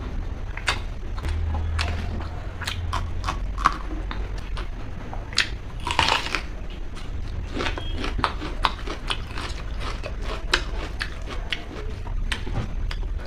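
Close-miked chewing and eating: many short, sharp, wet mouth clicks and smacks, several a second, with a louder longer crunch about six seconds in.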